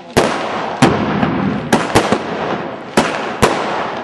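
Aerial fireworks bursting overhead: about six sharp bangs at uneven intervals, some in close pairs, each fading out in a noisy tail.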